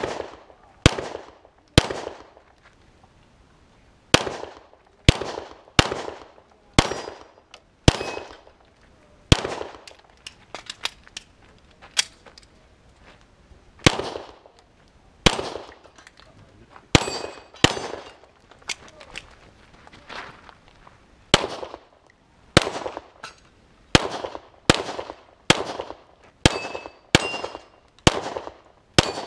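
A string of pistol shots, roughly one a second with short pauses, fired at steel plates. Some shots are followed by the brief ring of struck steel.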